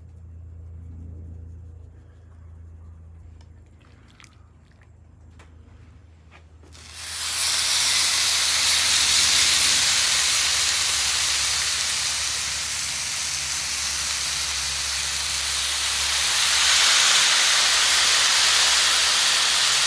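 Raw pork tenderloin laid onto a flat-top griddle whose oil is at its smoke point, sizzling loudly and steadily from about seven seconds in. Before that there is only a low steady hum with a few faint clicks.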